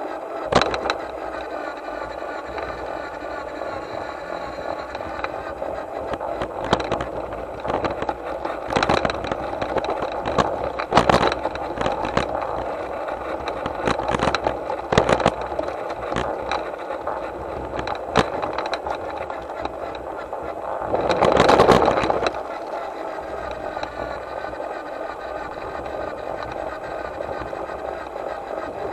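Model garden-railway locomotive running along its track: a steady whine with irregular clicks and knocks throughout, and a louder, rougher stretch about 21 seconds in.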